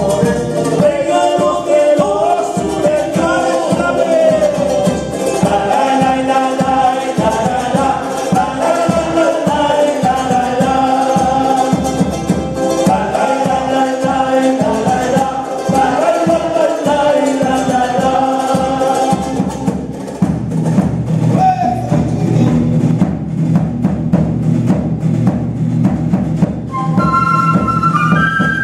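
Live Latin American folk music: acoustic guitars and a small strummed string instrument over steady hand percussion and drum. The low end grows heavier about two-thirds of the way through, and a flute comes in with a high melody near the end.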